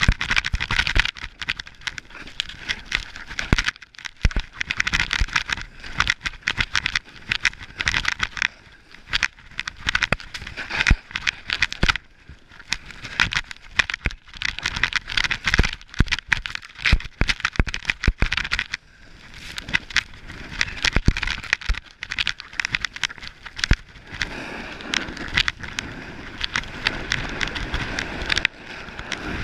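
Snowboard riding over snow: the board's base and edges hiss and scrape, broken up by many short knocks and clicks as it chatters over chopped-up powder. Near the end it settles into a smoother, steadier hiss on groomed snow.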